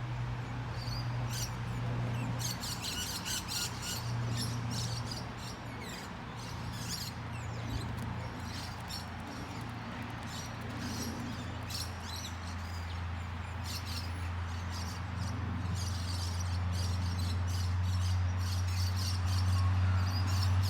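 Birds chirping and calling many times over a steady low hum.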